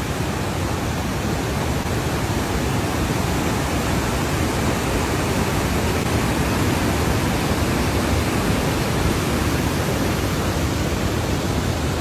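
River cascades in full flood after heavy rain, whitewater pouring over broad tiers in a loud, steady rush.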